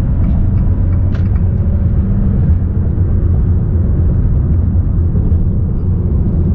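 Steady low rumble of the Fiat Toro's 2.0 diesel engine and road noise, heard from inside the pickup's cabin while driving.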